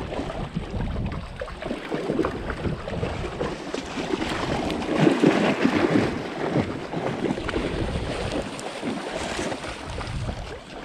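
Splashing in a shallow, fast creek as a dog bounds through the water, loudest about five to six seconds in, over the steady rush of the stream. Wind rumbles on the microphone.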